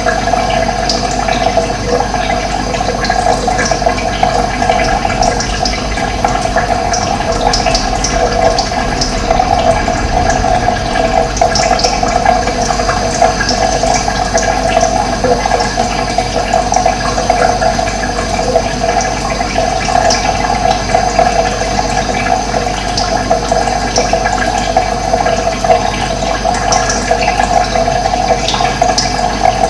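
Steady flowing water, a continuous rushing trickle, with short high bird chirps scattered throughout.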